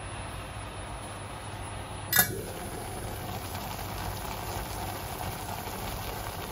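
Noodles with bok choy and sauce simmering in a stainless-steel pot on a gas hob, a steady low hiss. One sharp metallic clink with a short ring about two seconds in is the loudest sound.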